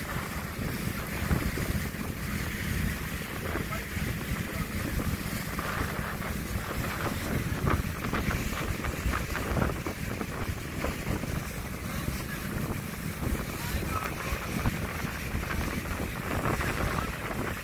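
Wind buffeting the microphone on a moving boat, with water rushing and splashing along the hull over a steady low hum.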